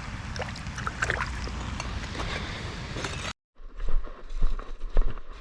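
Steady rushing outdoor noise that cuts off sharply about three seconds in, followed by a brief dead silence. After the silence come uneven low thumps and rumbles close to the microphone.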